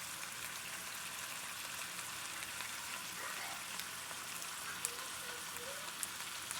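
Food sizzling in a frying pan: a steady hiss with scattered small pops.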